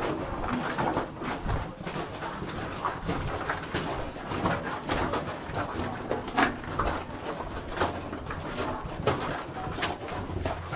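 Footsteps and scuffing of several people walking along the stone and gravel floor of a narrow underground tunnel, with many irregular steps.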